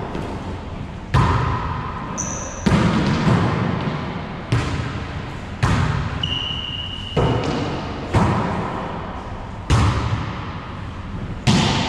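Wallyball rally in an enclosed racquetball court: the ball smacked by hands and rebounding off the walls and floor, sharp hits every second or two, each ringing into a long echo off the hard walls.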